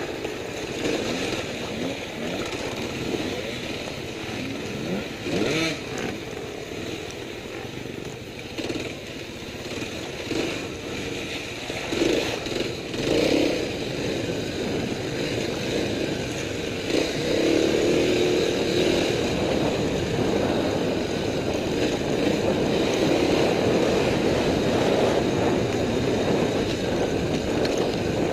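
Off-road motorcycle engine being ridden over rough trail, its revs rising and falling, with occasional knocks and clatter. It runs louder and steadier over the last third.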